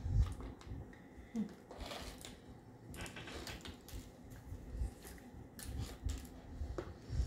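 A child puffs air in a series of short breaths through a plastic drinking straw, with soft papery rustles and scrapes of small chart-paper pieces.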